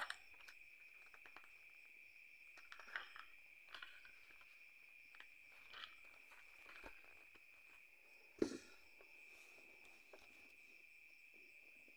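Crickets trilling steadily on one high pitch, faint, with a few soft knocks of a notebook being handled on the table, the sharpest about eight seconds in.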